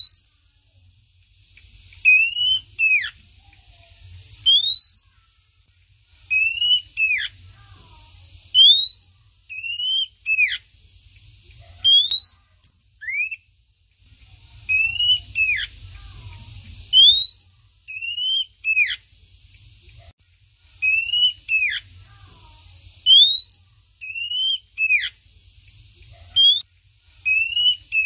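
Female oriental magpie-robin (kacer) calling to a male: a whistled phrase repeated about every two seconds, each a short falling note followed by a rising whistle. A faint steady high tone runs underneath.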